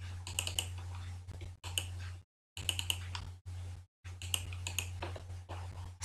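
Irregular clicking of a computer keyboard and mouse as text is typed and formatted, with a steady low hum behind.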